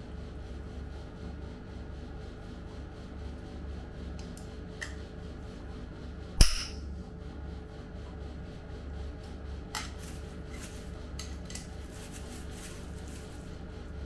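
A removed bicycle crankset being handled. It gives one sharp, loud metal knock about six seconds in and a few lighter clicks before and after, over a steady low hum.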